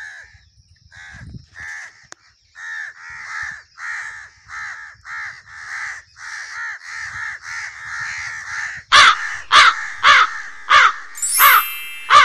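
A flock of crows cawing: a steady run of overlapping calls, about two a second, then much louder, closer caws from about nine seconds in.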